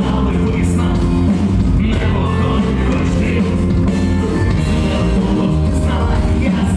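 Live band playing loudly through a venue PA: a male lead vocalist sings over electric guitar, bass guitar and drums, with a heavy low end.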